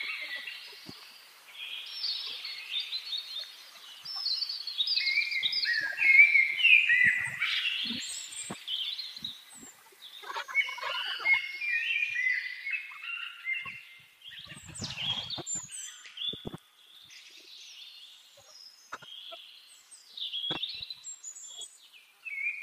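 Birdsong: several small birds chirping and trilling in quick, gliding notes, busy throughout, with a brief rustle or knock about fifteen seconds in.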